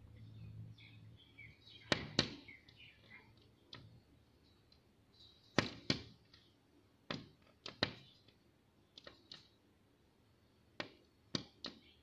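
Red-vented bulbul striking the window glass with its beak: about a dozen sharp taps, single or in quick pairs, at uneven gaps.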